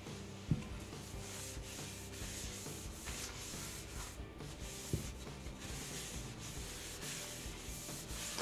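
Oil-soaked cloth rag rubbing over the wooden outside of a maple burl bowl, a continuous rubbing that swells with each stroke, as tung oil is worked into the wood. Two light knocks come about half a second and five seconds in.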